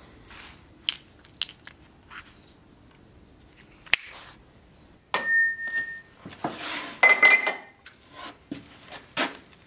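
Metal tools or parts clinking and knocking as they are handled and set down on a workbench, some strikes ringing briefly. The sharpest click comes just before halfway, and a busier clatter follows in the last third.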